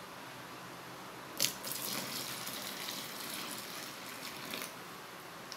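A litre of water poured from a measuring jug in a steady stream into a large tub of liquid soap mixture. The pour starts suddenly about a second and a half in and stops a little before the end.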